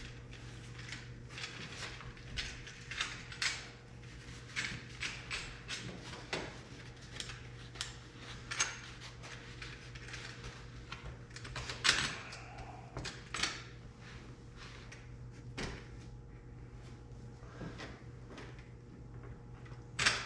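Hands working a convertible soft top and its frame bows: scattered light clicks, knocks and fabric rustles, with one louder knock about twelve seconds in. A steady low hum runs underneath.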